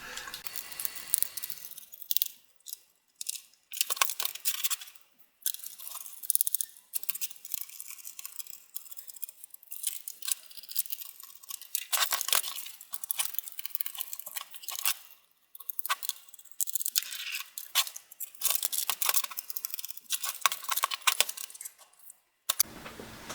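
Small screws being backed out of the underside of a Lenovo ThinkPad T530 laptop's plastic case with a small screwdriver: bursts of rapid light clicking and scraping, with short pauses between screws.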